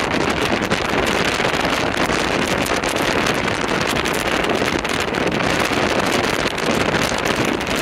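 Steady wind rush and microphone buffeting in a 2007 BMW M6 convertible driving top-down at road speed, with vehicle and road noise underneath.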